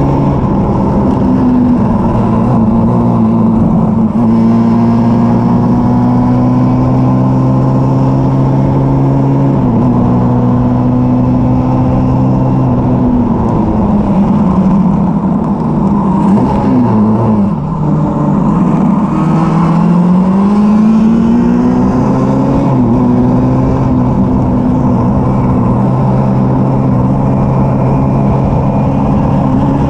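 Formula Junior race car's engine heard from the open cockpit, running hard at high revs. About halfway through, the engine pitch falls away for a corner, then climbs back up as the car accelerates and holds high again.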